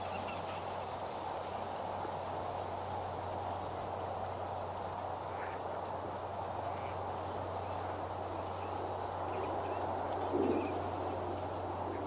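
Steady outdoor background rumble with a constant low hum, faint high bird chirps here and there, and one brief, louder low call about ten and a half seconds in.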